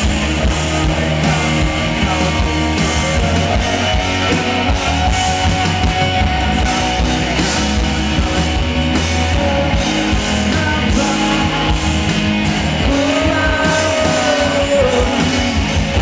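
Pop-rock band playing live: electric guitar, bass and drums over a steady beat, with a singing voice over part of it, heard from the audience.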